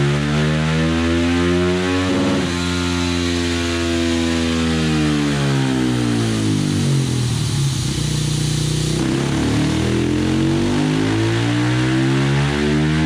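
KTM 450 SMR's single-cylinder engine, breathing through a DVR dual titanium exhaust, running on a dyno. Its revs fall away to a low point a little past halfway, then climb again.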